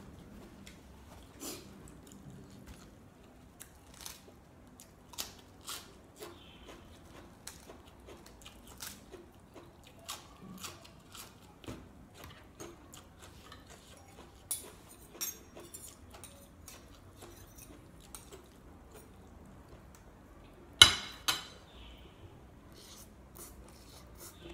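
Close eating sounds of a spicy glass noodle salad with boneless chicken feet: chewing with scattered small clicks of a fork against the plate. About three-quarters of the way through comes one much louder sharp clack, followed by a smaller one.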